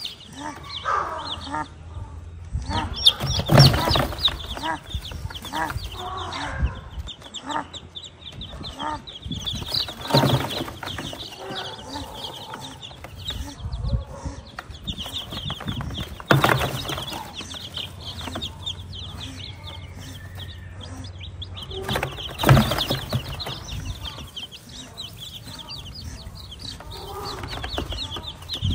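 Newly hatched chicks peeping continuously in quick high chirps while a broody hen clucks low beneath them. A few louder sudden bursts come about six seconds apart.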